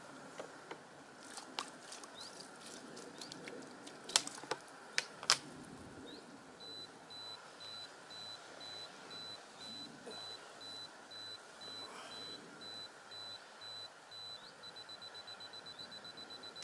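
Camera self-timer beeping: a steady high beep repeating a little faster than once a second, then a fast run of beeps near the end as it counts down to the shot. A couple of sharp clicks come about four and five seconds in.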